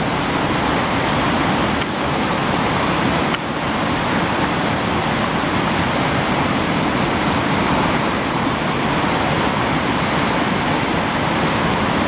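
Rushing water of a small waterfall and rapids pouring over smooth rock slabs: a steady, even rush with no breaks.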